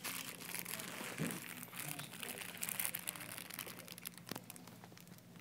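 Crinkling and rustling, dense with small clicks, loudest over the first three seconds and easing off after, with one sharp click about four seconds in.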